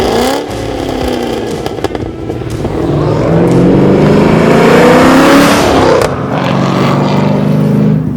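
Modified 2016 Holden Commodore SSV Redline's 6.2-litre V8, with headers, custom-grind cam and a custom 3-inch stainless exhaust, accelerating hard: the exhaust note climbs in pitch through the middle, is loudest about halfway through, then holds steadier near the end.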